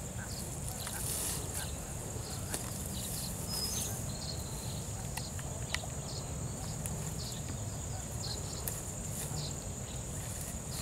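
Outdoor ambience: a steady high-pitched insect drone with short bird chirps about once a second, over a low rumble, with a few faint clicks.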